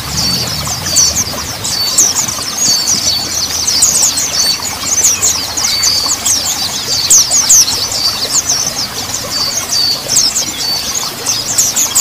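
Mountain white-eye (montanus pleci) song: a dense, unbroken stream of rapid, high, sweeping chirps and twitters.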